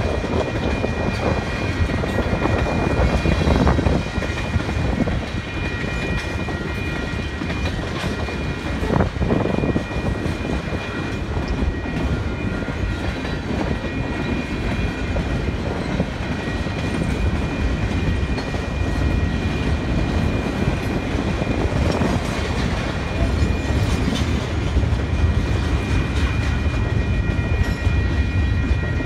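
Freight train cars rolling steadily through a road grade crossing, steel wheels clacking over the rail joints under a continuous low rumble. The crossing signal bell rings steadily over it.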